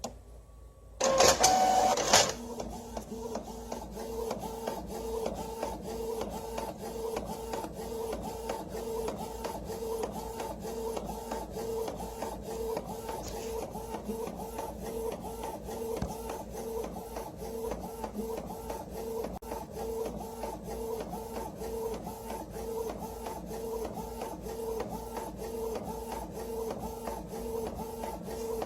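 Printer starting with a loud clatter about a second in, then running steadily with an even, repeating mechanical pulse.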